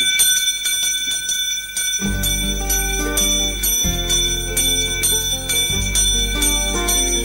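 Introductory music: a quick, evenly repeated bell-like chiming figure, joined about two seconds in by low sustained chords that change every couple of seconds.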